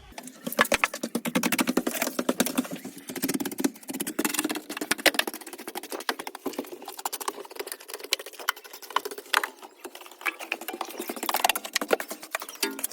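A small broom or brush sweeping dirt off a JCB vehicle model: quick, irregular scratchy strokes of bristles rubbing and clicking over its surfaces.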